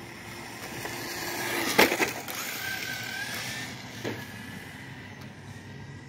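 Kyosho Fazer MK2 radio-controlled car running on rough, cracked asphalt, its electric motor whining over the tyre noise. It grows louder to a peak as it passes close about two seconds in, then fades.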